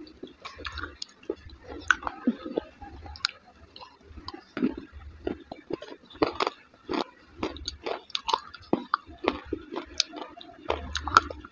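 Close-up mouth sounds of a person eating a soft, creamy food: chewing with many short, irregular wet clicks and smacks.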